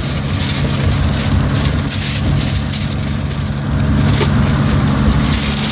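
Steady drone of a moving bus's engine and road noise heard from inside the cabin, with the rustle of paper and a cardboard box being handled.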